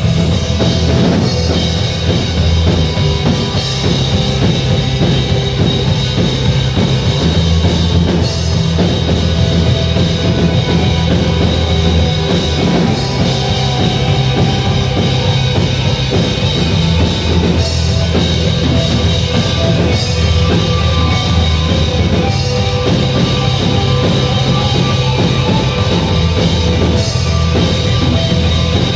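Loud rock music with a steady drum-kit beat and sustained low bass.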